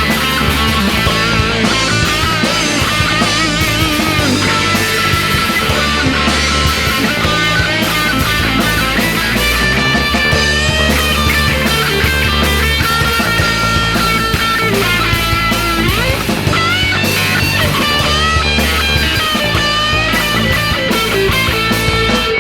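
Rock music with a steady bass and drums under a bending electric guitar lead: an instrumental break with no singing.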